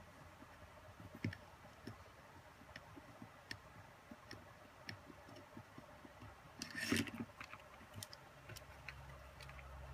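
Faint, scattered small clicks and taps of fingers handling tiny screws and plastic and metal drone-gimbal parts, with a louder clatter about seven seconds in.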